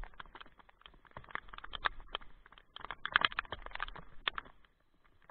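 Rain falling on a kayak, the drops hitting close to the microphone as a dense run of irregular sharp taps of uneven loudness, thickest about three seconds in.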